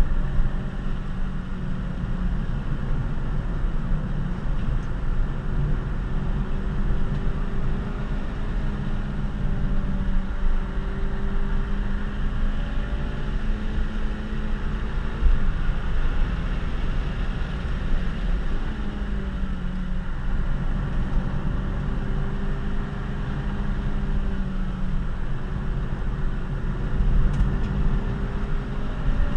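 Honda Civic Si (FG2) 2.0-litre four-cylinder engine running under load, heard from inside the cabin over heavy tyre and road rumble. Its pitch holds steady, dips about two-thirds of the way through as the throttle is eased, then climbs again.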